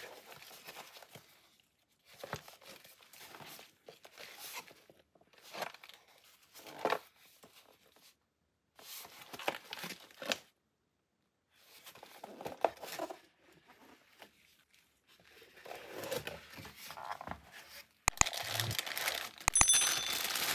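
Gloved hands handling and opening a cardboard pistol box: short bursts of cardboard scraping and rubbing, with brief spells of total silence between them. Near the end a plastic bag wrapped round the pistol crinkles loudly, with a few sharp clicks.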